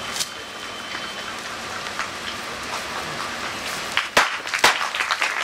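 Audience applause as a steady patter, growing denser with louder, sharper claps about four seconds in.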